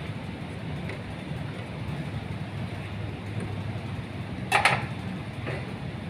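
Wires being handled inside a steel disconnect-switch enclosure: one sharp clack about four and a half seconds in and a fainter tap a second later, over a steady low background hum.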